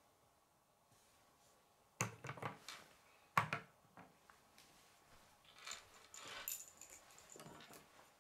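Plastic K'nex wing frames clacking and knocking as they are set down on a wooden tabletop: a few light knocks, the loudest about three and a half seconds in, followed by faint rustling of the pieces being handled.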